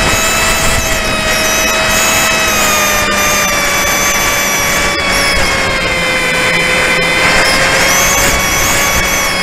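Model airplane's motor and propeller whining steadily, heard from a camera on board the plane, over a rush of wind noise. The whine sinks a little in pitch over the first few seconds and then holds.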